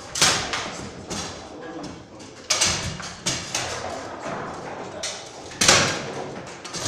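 Bonzini table-football table in play: the ball and rods give sharp, irregular knocks, about seven of them a half-second to a second and a half apart, the loudest about five and a half seconds in.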